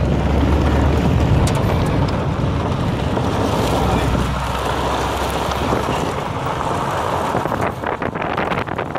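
Car driving on a rough gravel road: wind noise on the microphone over a steady low road rumble. The rumble drops away about halfway through, and a few short knocks and rattles from the road come near the end.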